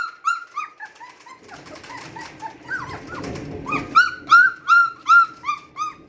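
Standard poodle puppy whining in a run of high, arched cries, about three a second; the cries break off about a second and a half in while a low rumble swells and fades, then resume loudly about four seconds in. The owner cannot tell whether the puppy is frightened by the thunderstorm or wants its mother.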